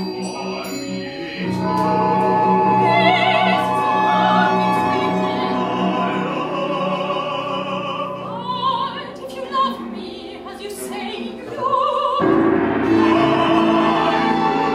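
An opera singer singing with vibrato over a chamber orchestra of winds, strings, harp, piano and percussion, live. About twelve seconds in, the ensemble shifts to a new, louder chord.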